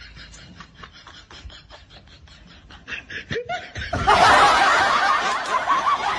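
A person laughing hard, building up about three seconds in and loudest over the last two seconds. Before that, a quick run of light clicks and crunches as a puppy works at scattered dry kibble and a steel bowl.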